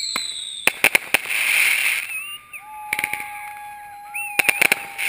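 Aerial fireworks going off: three clusters of sharp cracks, spaced a couple of seconds apart, each followed by a hiss, with thin whistle-like tones in between.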